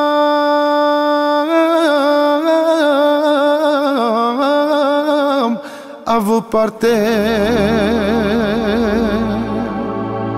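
Romanian folk-style party music: a single ornamented lead melody holds and bends long notes. About six seconds in it breaks off for a few short stabs, then a lead line with a fast wavering vibrato carries on over a bass pattern.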